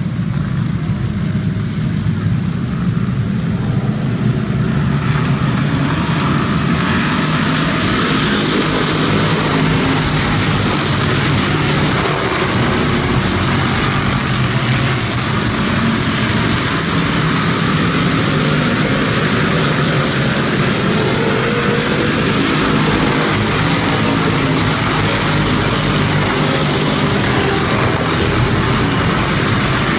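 A pack of about three dozen street stock cars racing on a short oval, their V8 engines at full throttle in one continuous, dense drone. It grows louder over the first several seconds as the field comes around, then holds steady.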